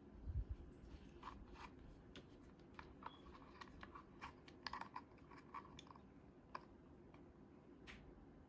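Faint clicks and taps of a Panasonic Eneloop AA battery and fingers against the plastic case of a BT-6 battery tester as the battery is fitted into its slot and pressed to the contacts, with a low bump just after the start.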